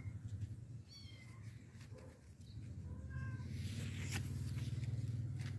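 Domestic cat meowing twice, short high calls about one second and three seconds in, over a low steady rumble that swells in the second half.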